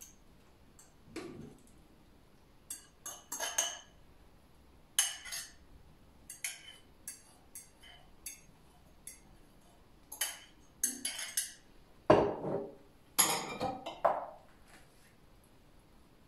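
A metal fork clinking and scraping against a glass bowl, with scattered irregular clinks as marinade is scraped out over chicken in a foil baking tray. The loudest is a fuller clatter about twelve to fourteen seconds in.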